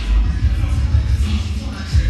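Background music with a heavy bass beat.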